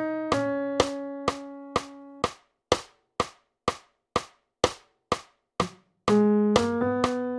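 Notation-software playback of a transcribed vocal melody over a metronome clicking steadily at about two clicks a second. One held note sounds at the start and fades by about two seconds in. After that only the clicks are heard until the melody comes back about six seconds in, stepping up through a few notes.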